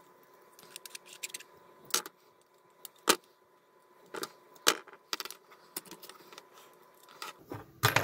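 Irregular sharp clicks and ticks of a small metal pick against the plastic cover and LED column of a cheap LED light bulb, as the cover is worked loose. The sharpest click comes about three seconds in.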